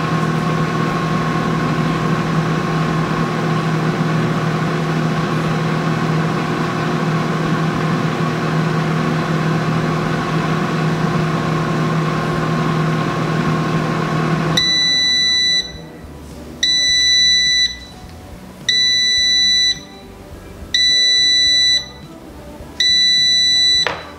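Air fryer's fan running with a steady hum, cutting off about fifteen seconds in as its timer ends, followed by five loud beeps, each about a second long and two seconds apart, signalling that the cooking cycle has finished.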